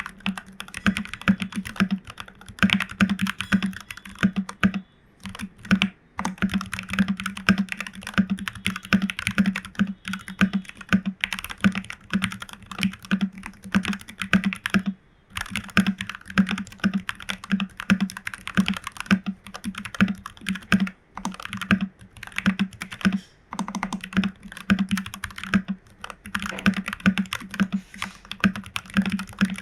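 Continuous typing on a FEKER 84 mechanical keyboard with Jwick Black v2 nylon linear switches and PBT keycaps: a rapid run of keystrokes with a deep, full bottom-out, broken by a few brief pauses.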